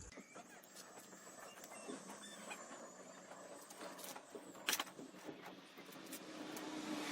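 Small fire of mini firewood burning, crackling faintly with scattered sharp pops, one louder pop about two-thirds of the way in.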